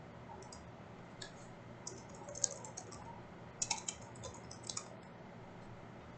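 Faint bursts of typing on a computer keyboard: a run of quick key clicks about a second in, then another after a short pause.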